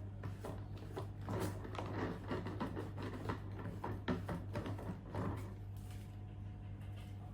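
Irregular light clicks, taps and rubbing from hands handling objects at close range, over a steady low hum.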